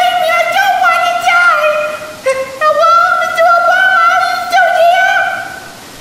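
A very high-pitched, sing-song voice held in long wavering tones with no clear words. It breaks off briefly a little after two seconds in and fades near the end.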